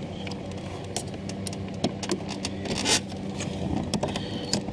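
Small plastic clicks and handling noises as a car door trim panel and its tweeter wiring connector are worked loose by hand, with a short rustle about three seconds in, over a steady low hum.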